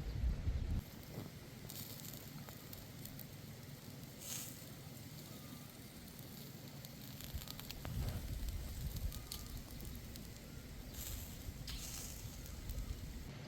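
Open wood fire crackling steadily with scattered pops, and a few louder hissing flare-ups about four seconds in and again near the end.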